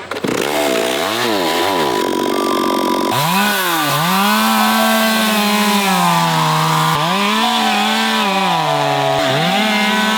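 Two-stroke chainsaw cutting through a tree. The engine revs up about three seconds in and holds high, with its pitch dipping and recovering a couple of times as the chain works in the wood.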